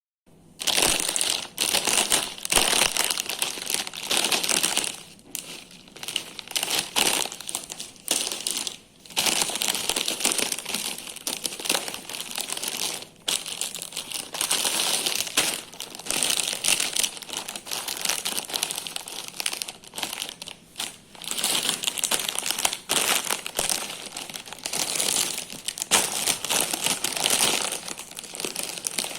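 Crinkling and crackling at snack time, coming in bursts of a second or two with short pauses between them.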